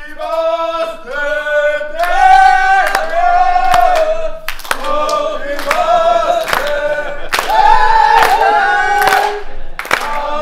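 A group of people singing a birthday song together to a cake with lit candles, with sharp claps about once a second in time with the song.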